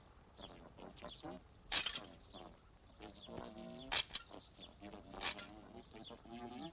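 Cartoon sound effects of a rooftop TV antenna being turned by hand: sharp metallic clinks about two, four and five seconds in, among short pitched sounds that slide up and down.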